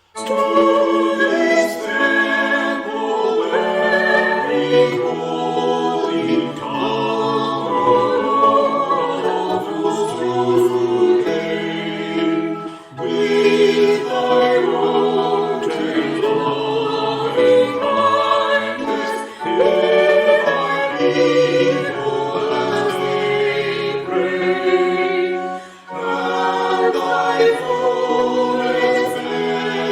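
A choir singing in several-part harmony, phrase by phrase, with short pauses about 13, 19 and 26 seconds in.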